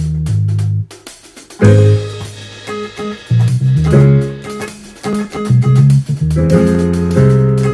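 Recorded funk-pop music led by an electric bass line, with guitar and drums. The music cuts out for under a second about a second in, then comes back at full level.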